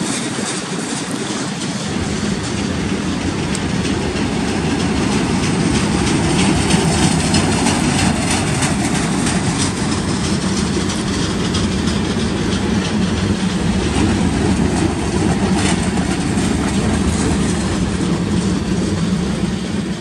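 Freight train cars, tank cars and covered hoppers, rolling past at close range: a steady, loud rumble of steel wheels on rail, with clickety-clack from the wheels passing over the track.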